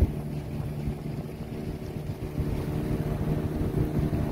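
Motorboat engine running steadily, heard from aboard, with wind on the microphone and a short click at the very start.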